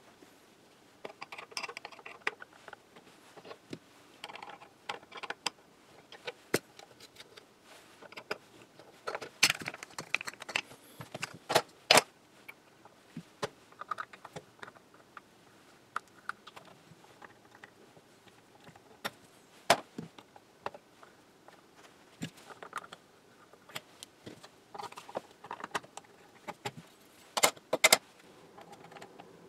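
Irregular clicks, taps and short rattles of hand work on an antique radio panel: knobs and tuning dials being worked loose, pulled off and set down among others in a plastic tub.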